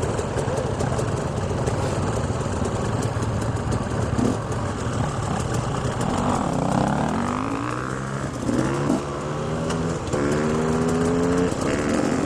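Enduro dirt bike engines idling. From about six seconds in, an engine is blipped, its pitch rising and falling, then held at steady raised revs.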